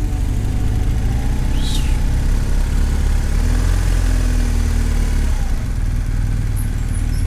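Motorcycle engine running steadily, a low even rumble, with one brief high chirp about two seconds in.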